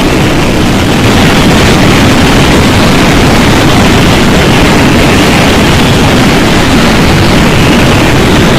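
Loud, steady roar of tornado winds buffeting the storm-chasing vehicle and the microphone, heaviest at the low end, swelling slightly about a second in.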